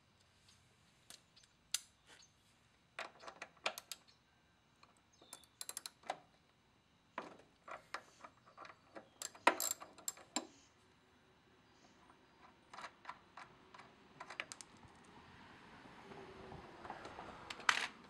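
Light metallic clicks and clinks of a socket and small wheel hardware being handled at a lawnmower's rear wheel hub. They come in scattered clusters, loudest about halfway through. In the last few seconds a growing scraping rustle follows as the plastic rear wheel is worked off its axle.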